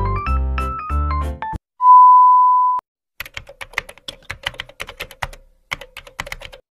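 Background music stops about a second and a half in and is followed by a single loud, steady beep lasting about a second. Then comes a run of fast key clicks, a keyboard-typing sound effect for a typed-out title, lasting about three seconds with a brief break.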